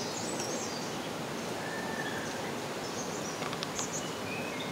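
Steady background hiss with a few faint high chirps, and a few light clicks from a spoon scraping thick ground chilli paste out of a steel mixer jar, a little past halfway.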